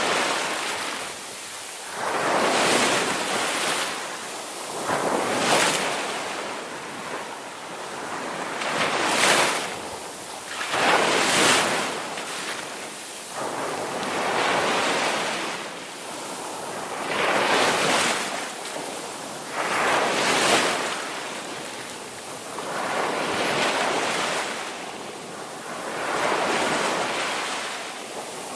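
Ocean surf: waves breaking and washing in one after another, a new wave swelling up and falling away every two to three seconds.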